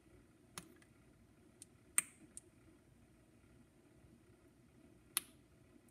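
Faint steady running of an Edison B19 Diamond Disc phonograph's spring-driven motor and gears as its drive gear is greased, with a few sharp, irregular clicks, the loudest about two seconds in and another near the end.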